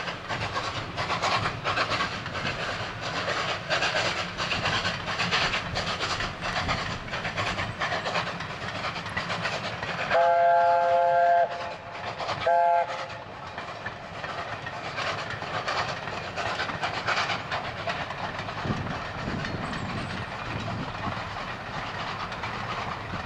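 LNER A4 Pacific steam locomotive 4464 Bittern, a three-cylinder engine, passes with a passenger train, its exhaust beating rapidly. About ten seconds in it sounds its three-note chime whistle twice, a long blast and then a short one, the loudest sound here. Near the end the coaches rumble past.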